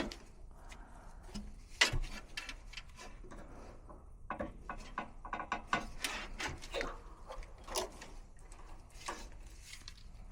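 Scattered small clicks, taps and scrapes of hand work on an HVAC unit's run capacitor and its wires, with one sharper click about two seconds in.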